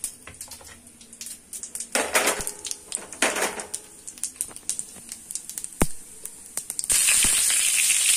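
Cumin and panch phoron seeds crackling in hot oil in a steel kadhai, with scattered sharp pops. About seven seconds in, a loud, steady frying sizzle starts as pieces of raw green mango go into the hot oil.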